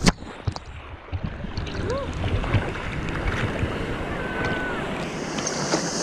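Water splashing over an action camera as a person plunges into a river pool off a zipline: muffled for about the first second while the camera is under water, then choppy splashing with wind on the microphone.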